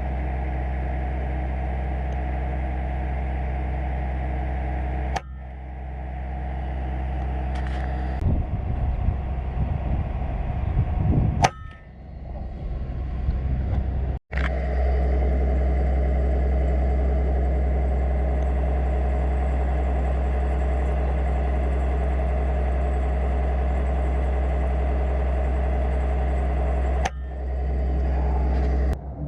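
A steady low hum, like an idling engine, broken by a few sharp cracks that fit air rifle shots at long range.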